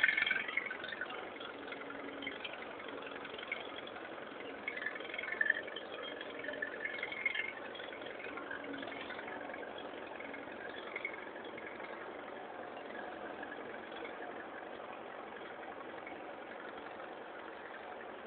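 Tractor engine running steadily as the tractor drives out of a shallow river ford and up a dirt bank.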